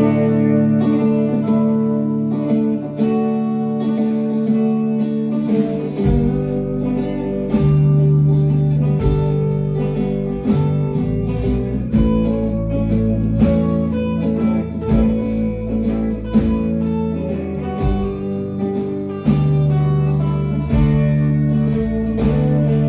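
A live band plays the instrumental intro of a slow country waltz, led by guitar. A steady beat and a bass line come in about six seconds in.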